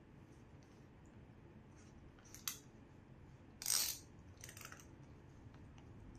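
Belt and 3D-printed plastic holster being handled as the belt is threaded through the holster's loop: faint rustling, with a sharp click about two and a half seconds in and a louder brief rustle just under four seconds in, then a weaker one.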